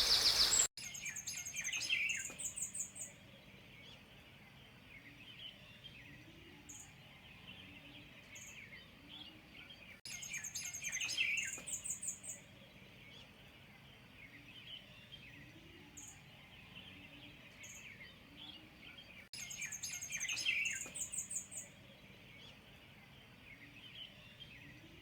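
Songbirds singing: about every nine seconds a quick run of high repeated notes over lower chirping, with single short high chirps in between. The same passage recurs three times, as in a looped recording.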